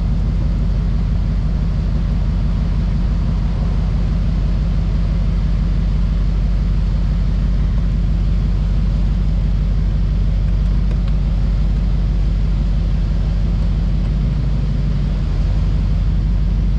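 Chevrolet Silverado 2500HD turbo-diesel truck on the move, its engine running with a steady deep drone and a rush of air over it: boost escaping through a torn intercooler flex hose.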